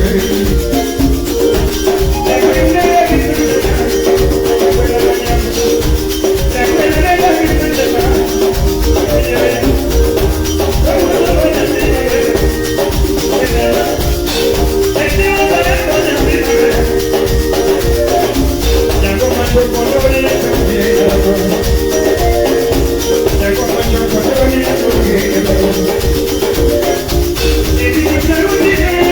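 Live band playing dance music: interlocking melodic lines over a steady bass beat, with a shaker keeping time.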